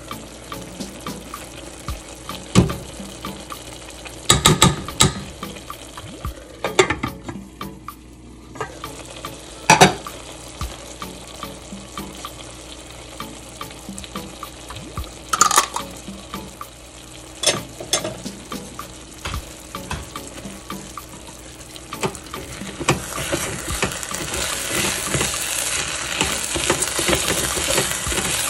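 A spoon and spatula knocking and scraping against a pot of chicken and rice as tomato paste is spread on top, with several sharp knocks. Under it a steady sizzle that grows louder in the last few seconds.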